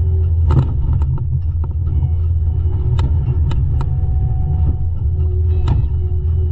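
Diesel engine of heavy land-clearing machinery running steadily with a deep, constant drone. Sharp knocks or cracks cut through it about half a second in, three in quick succession around three to four seconds, and one more near the end.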